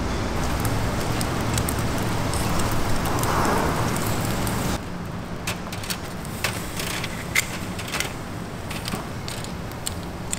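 Shellfish grilling over a coal-briquette fire: a steady sizzle over a low hum, then, after an abrupt change about halfway through, a quieter sizzle with scattered sharp crackles and clicks.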